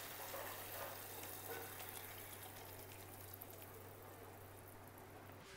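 Faint wet sounds and a few light clinks as thick chicken curry is tipped from a pan onto a ceramic plate, over a low steady hum.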